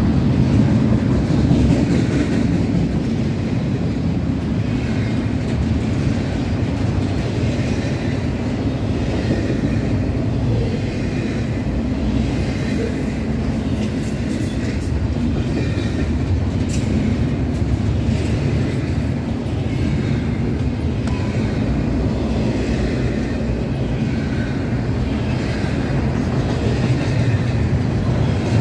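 Double-stack intermodal well cars rolling past at track speed: a steady, unbroken rumble of steel wheels on rail.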